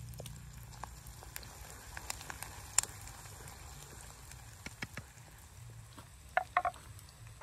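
Onions frying in a small pan over an open wood fire, with the fire crackling and popping in scattered sharp clicks. A few short high chirps come about six and a half seconds in.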